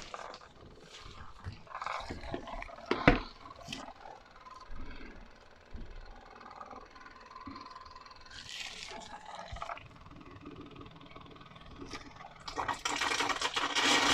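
Scattered clicks and knocks of handling, with one sharp knock about three seconds in; near the end a loud, steady hiss starts, the jet of a steam cleaner being sprayed.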